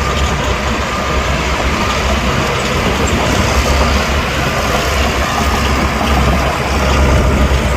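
Heavy diesel earthmoving machinery running steadily, with a deep engine hum.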